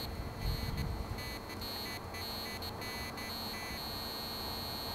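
Faint, steady high-pitched electronic whine, with a run of short faint beeps from about one second in to nearly four seconds in.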